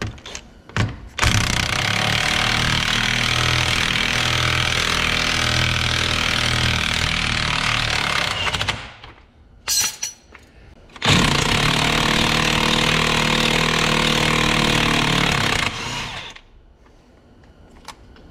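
Cordless DeWalt impact wrench hammering at a ball-joint nut on the bottom of a car's front steering knuckle. It runs in two long bursts of about seven and five seconds, with a short blip between them.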